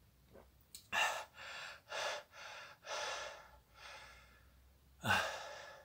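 A man breathes hard through an open mouth to cool the burn of a super-hot chili pepper: about six quick, rasping breaths in and out, then a louder gasping breath near the end.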